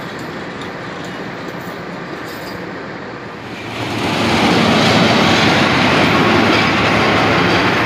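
Passenger train coaches passing close by, the wheels rolling steadily on the rails. About four seconds in the sound grows louder and fuller as the bogies pass right beside.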